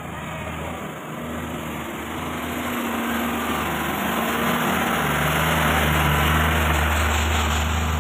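Diesel engine of a loaded Hino Dutro 300 truck running under load as it climbs past close by. It grows steadily louder and is loudest about six seconds in, then begins to fade as the truck moves away.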